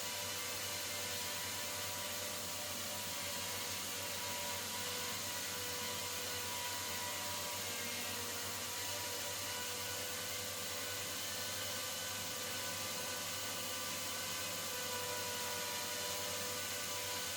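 DJI Mini 3/4 Pro drone propellers spinning at a steady speed: an even whirring hum with a couple of steady tones over a hiss.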